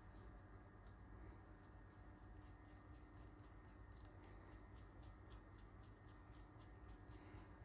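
Faint, irregular light clicks and ticks, several a second, of a small screwdriver and a metal spindle being handled and fitted to a small circuit board, over a low steady hum.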